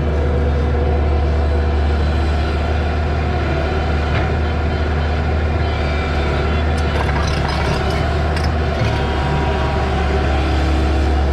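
Excavator's diesel engine running steadily at a constant low drone, with a few light clanks and rattles about seven to eight seconds in.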